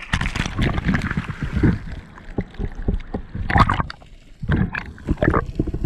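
Water splashing and sloshing around a microphone at the waterline, in uneven bursts: a swimmer's strokes and kicks at the surface, with muffled underwater gurgling.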